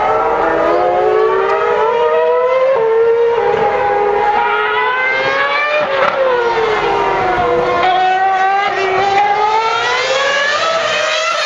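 2012 Formula One 2.4-litre V8 engines at high revs: the pitch climbs through the gears with small drops at the upshifts, falls sharply about six seconds in as a car passes, then climbs again near the end.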